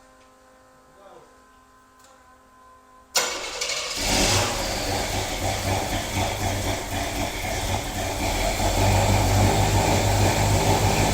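Chevrolet V8 fitted with a Holley Sniper EFI throttle body starting up. It fires suddenly about three seconds in, after a faint steady hum, and keeps running. This is the first start on the newly installed fuel injection.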